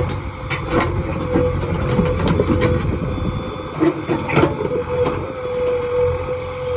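JCB 3DX backhoe loader's diesel engine running under load with a steady whine. Over it, the digging bucket scrapes and knocks against hard stone in a string of sharp clacks.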